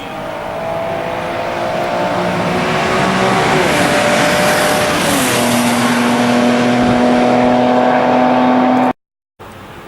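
2018 Holden Commodore's V6 engine pulling hard under acceleration, heard from inside the cabin, with two upshifts where the engine note drops about a third and halfway through. The sound grows steadily louder, then cuts off suddenly near the end.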